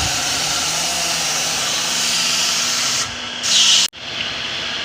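Steady hiss of an abrasive power tool working on a car body panel. About three seconds in the sound changes to a brighter hiss, then breaks off sharply at a cut and runs on a little quieter.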